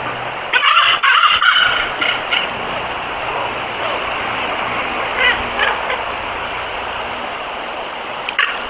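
Short animal calls in three bursts, the longest about a second in, over a steady outdoor hiss.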